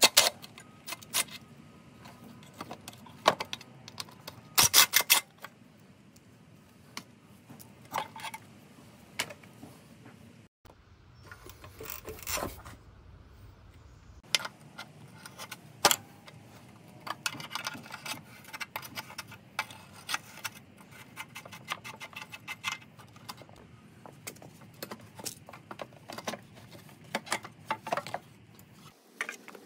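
Hand tools on a motorcycle frame: runs of quick ratchet clicks and scattered metal clinks and knocks as parts of a 1983 Yamaha XT600 are unbolted and handled.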